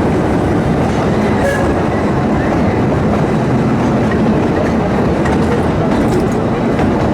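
Narrow-gauge steam train and its carriages running steadily along the track, a continuous even noise without breaks.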